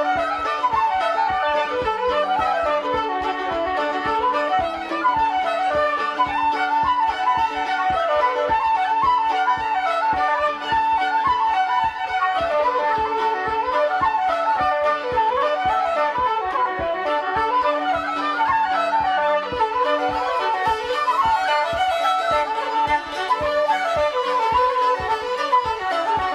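Irish traditional session music: flutes and fiddles playing a dance tune together, with a steady beat from the accompaniment underneath.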